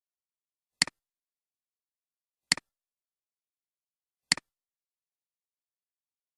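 Three computer mouse clicks about two seconds apart, each a sharp click followed at once by a softer one, the press and release of the button.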